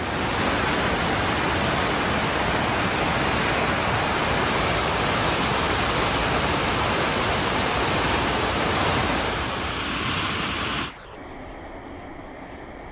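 Man-made waterfall at the Wynn Las Vegas pouring: a steady, loud rush of falling water. About eleven seconds in it drops suddenly to a quieter, duller rush.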